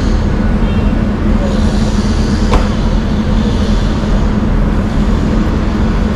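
City street traffic noise: a steady rumble of passing vehicles under a constant low hum, with a single sharp click about two and a half seconds in.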